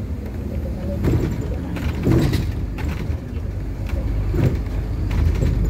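A city bus driving, heard from inside the cabin: a steady low engine and road rumble, with a few brief rattles.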